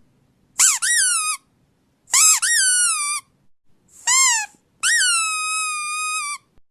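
A series of high-pitched squeaks played to provoke a dog's reaction: four in all, each rising then falling in pitch, the last held about a second and a half.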